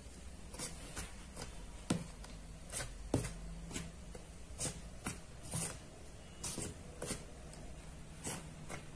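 A metal spoon stirring dry flour and spice mix in a bowl, scraping and knocking against the bowl in short irregular strokes, about one or two a second.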